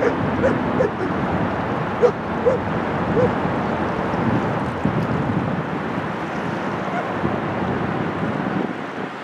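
Wind gusting on the microphone over waves on the shore, a steady rushing noise. A few brief calls sound in the first few seconds. The wind's low rumble eases near the end.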